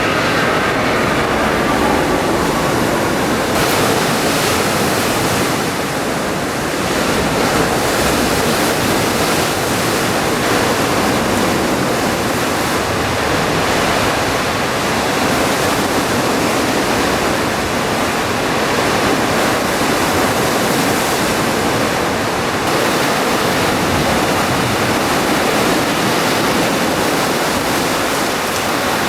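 Sea surf washing steadily onto the beach, a loud continuous rush of water noise with no breaks.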